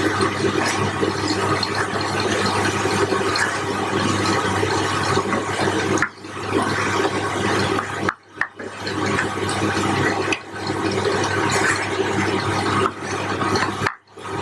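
Chopped onions and ground spices frying in oil in a pan, a loud continuous sizzle, with a spoon stirring and scraping through the mixture. The sound breaks off sharply for a moment a few times.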